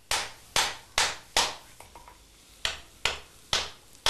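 Hand hammer striking a red-hot tamahagane steel plate on an anvil in forging: sharp blows about two a second, four, then a pause of about a second, then four more.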